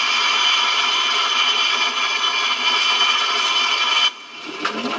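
Steady electronic hiss with several high held tones, a sound effect played through a KITT replica's sound unit. It cuts off about four seconds in, and a rising pitched whine begins near the end.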